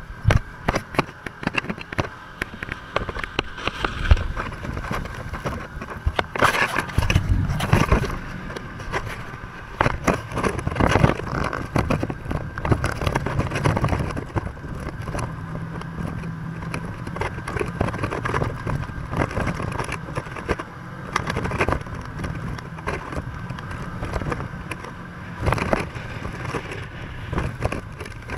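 Off-road buggy driving over a rough dirt track: its engine runs steadily under frequent knocks and rattles as the body jolts over bumps.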